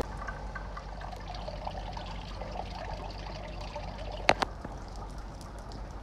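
Water trickling, over a low steady hum, with two sharp clicks close together about four seconds in.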